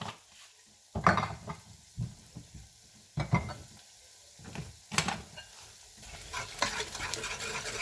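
Ground spices frying in hot oil in an aluminium pressure cooker, with a faint sizzle and a few separate sharp knocks. About six and a half seconds in, a metal spoon starts stirring and scraping against the pot.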